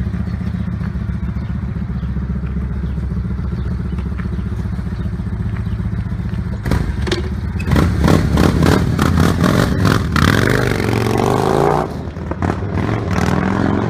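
Yamaha Warrior 1700's V-twin with a modified exhaust idling, then revved hard as the bike pulls away about seven seconds in. The exhaust note is loudest for several seconds, then drops off as the motorcycle rides into the distance.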